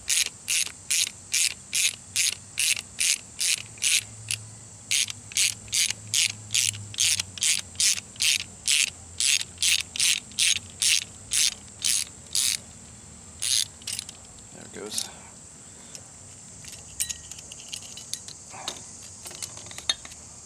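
Ratcheting tool clicking in quick, even strokes, about three a second, as a valve spring compressor is unwound to release a valve spring. The strokes stop about 13 seconds in and give way to a few light metal clicks as the compressor comes off.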